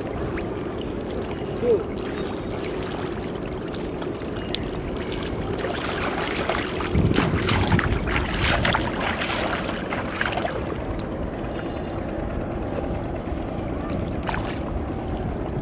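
Water splashing as a man wades and kicks through shallow river water while working a bamboo-framed fishing net, a burst of splashes from about six to ten seconds in, over a steady background of wind and a faint low hum.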